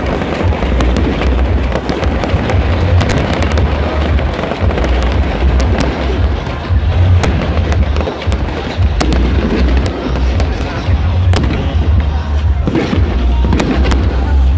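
Aerial fireworks going off in rapid succession: a dense run of sharp pops and crackles over a heavy low rumble from the bursts.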